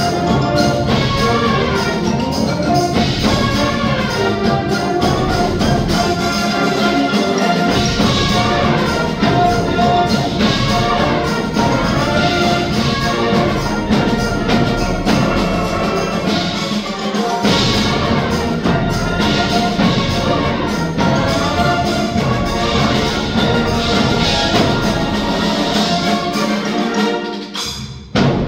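Concert band of brass, woodwinds and percussion playing a full-ensemble passage. Near the end the texture thins briefly, then a sudden loud accented chord rings out.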